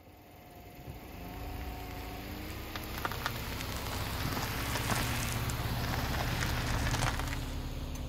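Car driving past on a gravel road: tyres crunching over loose gravel with scattered clicks of flicked stones, and the engine running underneath. The sound grows louder as the car comes close, loudest about five to seven seconds in.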